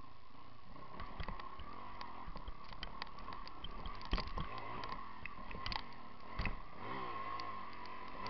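Enduro motorcycle engine revving up and down while climbing a rocky trail, with sharp knocks from the wheels and suspension striking rocks. The loudest knocks come about four and six and a half seconds in.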